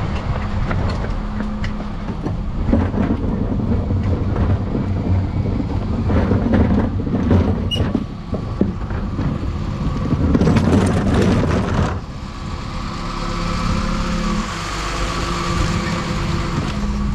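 A plastic garden-waste wheelie bin trundled over tarmac on its wheels, rumbling and rattling, with the Dennis Eagle Elite 6 refuse lorry's diesel engine running steadily underneath. The rolling stops about twelve seconds in, leaving the engine hum.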